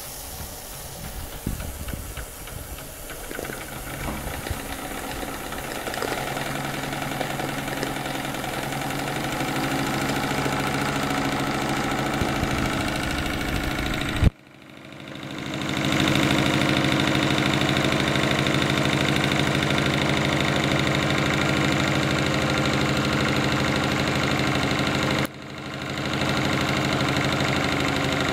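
Small homemade two-cylinder double-acting steam engine running, with its cast-lead flywheel spinning. The sound is uneven for the first few seconds, then settles into a steady running rhythm that grows louder. It breaks off abruptly twice, about halfway and near the end, each time fading back in.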